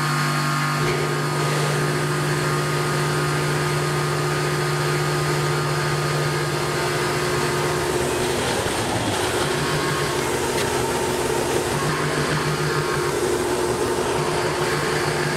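Tormach PCNC 1100 CNC mill roughing aluminum with a three-flute half-inch carbide roughing end mill under flood coolant. Its steady spindle and cutting tone changes pitch about eight seconds in. A shop air compressor runs underneath.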